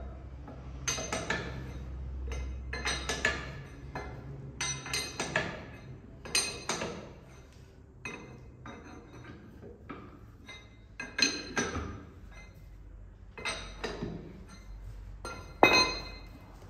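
Metal clinks and knocks with a brief ring, in irregular clusters every second or two, the loudest near the end: a steel tool working against the tractor's front-axle steering cylinder and linkage as the front wheels are turned by hand.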